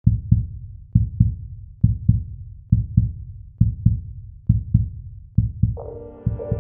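Music built on a deep, heartbeat-like double thump that repeats about once a second. A sustained brass-like synth chord comes in near the end.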